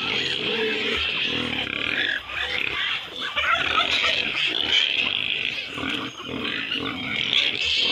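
Farmyard animals calling, with low grunting sounds and many short higher calls. The poultry present are a displaying male turkey, Muscovy ducks and chickens.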